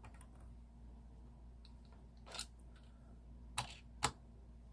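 Faint handling sounds of small 1:64 die-cast model trucks: a soft scrape about two seconds in, then two sharp clicks a little under half a second apart near the end.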